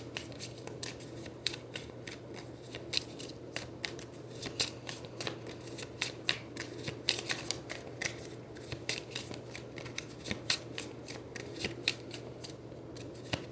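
A deck of reading cards being shuffled by hand: a long run of quick, irregular card clicks and rustles, with a faint steady hum underneath.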